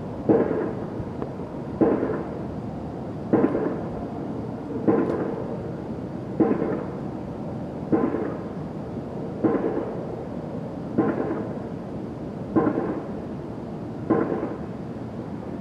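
An unidentified racket: a harsh, sudden sound that repeats evenly about every one and a half seconds, ten times over, each one fading quickly.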